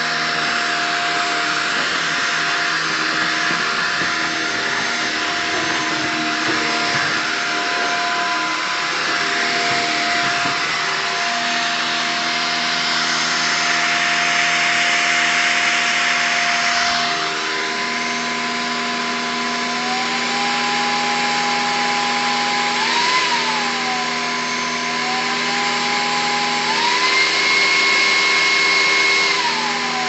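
Cordless stick vacuum running continuously. In the second half its motor pitch rises and falls back several times.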